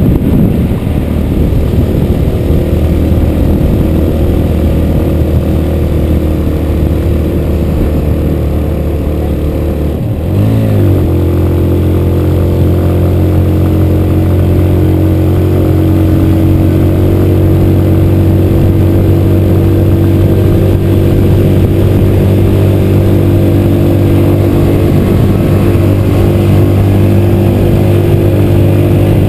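Motorcycle engine running steadily at highway cruising speed, heard from on the bike. About ten seconds in the engine note drops away briefly, then picks up again at a higher pitch and holds steady.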